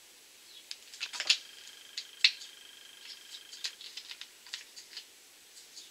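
A plastic sunscreen bottle's flip-top cap being snapped open and the bottle handled: a run of sharp plastic clicks and small taps. The loudest come about a second in and again a second later, followed by a patter of lighter clicks.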